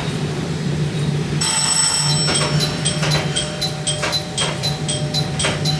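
Rapid electronic bell ringing that starts about a second and a half in and repeats at about four strikes a second. Under it is the steady hum of a diesel railcar running.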